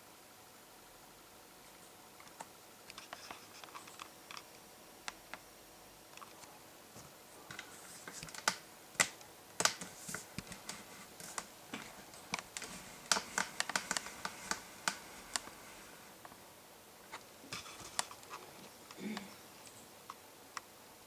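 Irregular light clicking and tapping in quick clusters, busiest around the middle and thinning out toward the end.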